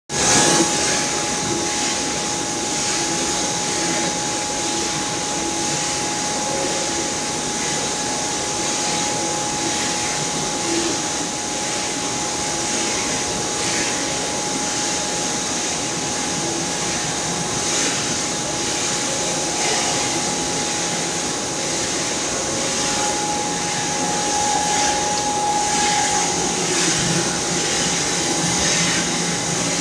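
Palm oil screw press running as it squeezes oil from palm fruit pulp: a steady mechanical drone and hiss with a constant high whine over it.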